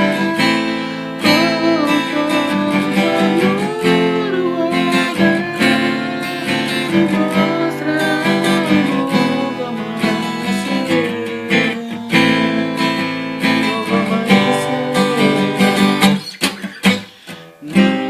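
Instrumental break in a gospel song: acoustic guitar strumming chords, with a gliding melody line over them. About two seconds before the end it breaks into a few separate, sharp strummed chords with short gaps between them.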